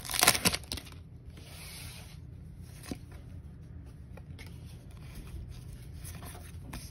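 Foil wrapper of a Pokémon card booster pack crinkling as it is torn open, loudest in the first second. Then softer rubbing and rustling as the cards are slid out and fanned, with a single light tap about three seconds in.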